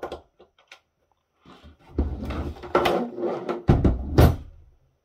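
A few small clicks as the removed screw is handled, then the plastic case of a battery backup (UPS) sliding and bumping on a tabletop as it is turned round, with a few sharp knocks.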